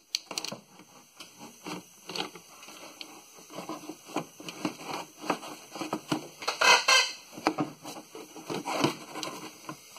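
Plastic engine cover of a Chevy Silverado 5.3 being handled and fitted over the intake: irregular taps, knocks and scrapes of plastic against the engine, with a louder scrape about seven seconds in.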